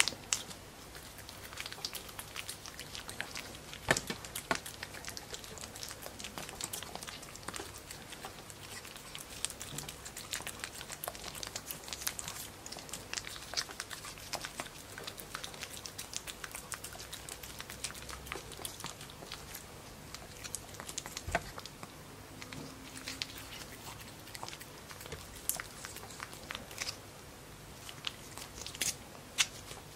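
Pekingese puppy licking and smacking at a Churu paste treat squeezed from its tube: a quick, uneven run of mouth smacks and clicks.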